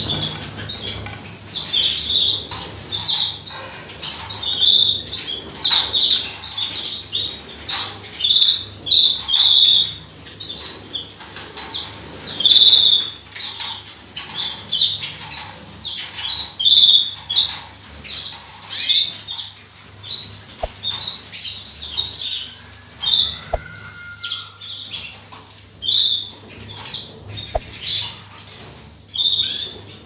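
A roomful of canaries let loose from their cages, calling in short, sharp chirps again and again with wings fluttering in between.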